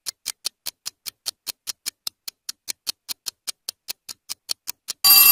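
Quiz timer ticking steadily, about five ticks a second, counting down the answering time. Near the end a loud bell rings, signalling that time is up.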